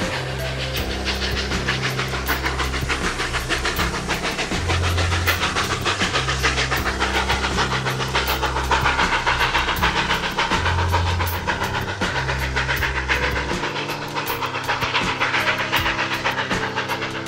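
Steam locomotive hauling a passenger train: a steady rush of noise with rapid ticks, mixed with background music whose bass line steps between notes every second or so.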